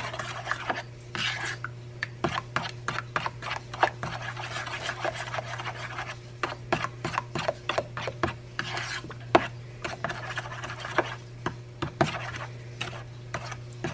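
Metal spoon stirring thick barbecue sauce in a bowl, with irregular scrapes and clicks against the sides a few times a second.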